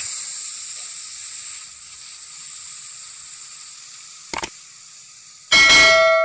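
Intro animation sound effects: a sizzling, sparkler-like hiss that slowly fades, a short mouse click about four seconds in, then a loud bell chime that rings on and fades out.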